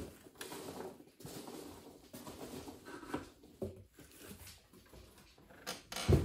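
Hands rummaging through a cardboard shipping box: irregular rustling and scraping of cardboard and packing, with small knocks and a louder thump near the end.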